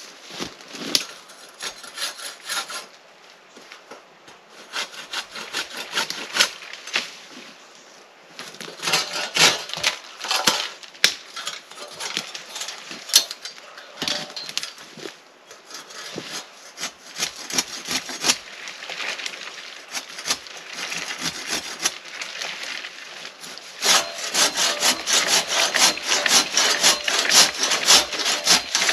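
Hand crosscut saw cutting through a tree trunk, the blade rasping through the wood in rhythmic back-and-forth strokes. The strokes come in bouts with short pauses between them, and are quickest and loudest near the end.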